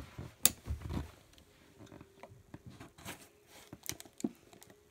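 A box being cut open with a Buck knife: a sharp click about half a second in, a few dull knocks, then scattered small clicks and scrapes of the blade and hands on the packaging.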